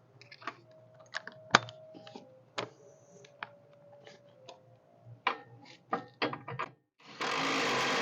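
Metal tools and hardware clinking and knocking at the lower mount of a rear shock absorber, then a power tool runs steadily for about two seconds starting near the end, tightening the shock's fastener.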